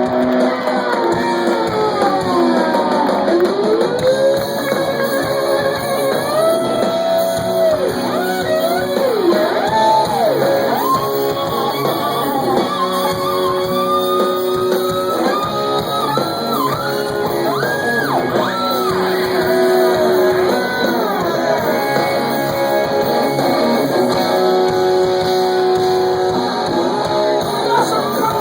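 Live rock music led by an electric slide guitar, its notes gliding up and down in pitch between sustained notes, as in the motorcycle-like slide intro of the song.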